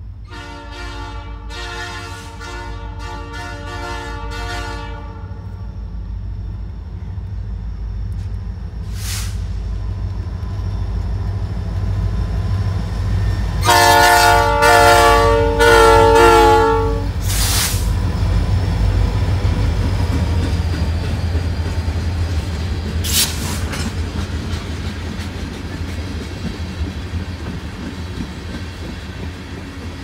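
Norfolk Southern freight locomotive's air horn sounding a sequence of several blasts as the train approaches, then a second, louder sequence as the locomotive passes close by, over the low rumble of the train. Then the freight cars, tank cars among them, roll past.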